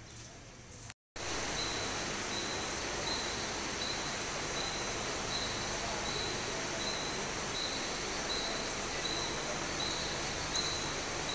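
Steady whirring hum at a covered platform beside a standing suburban EMU local train, with a short high beep repeating about every three-quarters of a second. A brief dropout comes about a second in.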